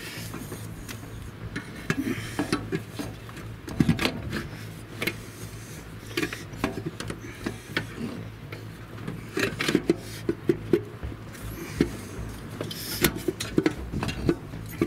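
Irregular clicks, light knocks and rubbing of engine parts being handled and worked into place by hand while the lower intake manifold and its tube are fitted, over a steady low hum.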